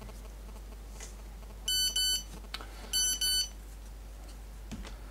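Electronic beeper sounding two double beeps, one pair a bit under two seconds in and the next about a second later: a signal that someone is calling for attention.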